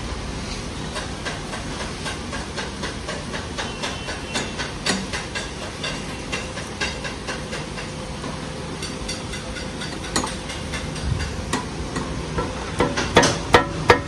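Irregular metallic clicks and knocks of hand work on intercooler pipe and hose fittings at the front of a tractor, with a quick run of louder knocks near the end. A steady hiss runs underneath.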